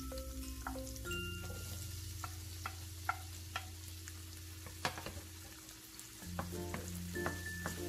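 Onion, garlic and chopped tomato sizzling in hot oil in a non-stick pan, stirred with a wooden spatula that clicks and scrapes against the pan several times. Soft background music plays underneath.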